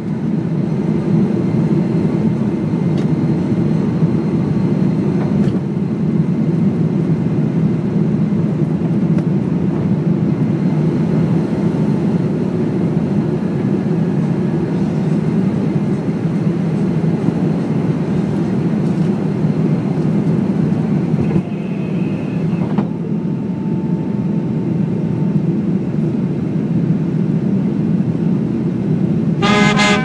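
Airliner cabin noise during takeoff and climb: the jet engines at takeoff power give a steady, loud rumble and rush from inside the cabin. A short high tone and then a lower one sound about two-thirds through, and brass band music comes in just before the end.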